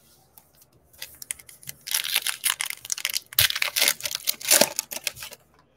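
Foil wrapper of a Topps Fire baseball card pack being torn open and crinkled by hand, a crackling rustle that starts about a second in and stops shortly before the end.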